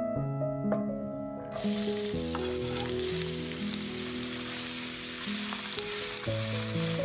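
Chopped onion sizzling in hot oil in a stainless steel frying pan, the sizzle starting suddenly about one and a half seconds in as the onion goes into the pan and going on steadily while it is stirred with a spatula. Background music plays throughout.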